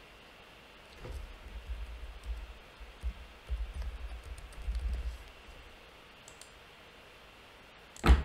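Typing on a computer keyboard for a few seconds, short dull taps in quick succession, followed near the end by a single sharp click.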